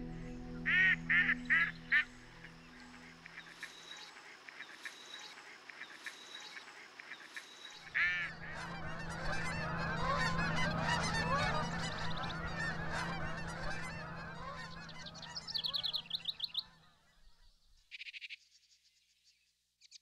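Four quick waterfowl calls, then a flock of geese honking and calling over one another for several seconds before fading away. A few high bird chirps follow near the end.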